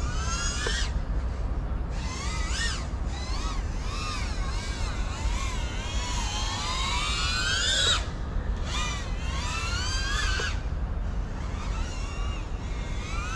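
FPV quadcopter's brushless motors whining, the pitch climbing and dropping with the throttle in repeated bursts. A long rising whine cuts off sharply about eight seconds in. There is a steady low rumble underneath.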